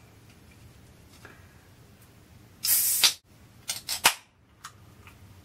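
Aluminium soda can being opened: a burst of fizzing hiss lasting about half a second, a little over two and a half seconds in, then a few sharp clicks of the pull-tab about a second later.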